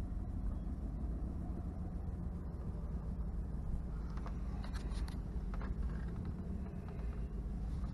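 Steady low rumble of a car running, with a few faint short clicks or rustles around the middle.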